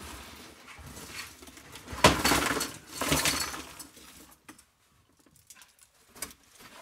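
Small mixed aluminium scrap pouring out of an upturned plastic crate onto a workbench, clattering and jingling. It hits hardest about two seconds in, with a second burst of rattling around three seconds, and dies away to a few scattered ticks by about four and a half seconds.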